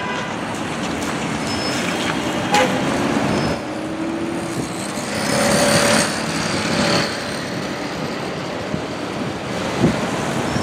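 City bus running at a stop and then pulling away on a wet street, over steady traffic noise. A sharp click comes about two and a half seconds in, and a louder hiss swells and fades around the middle.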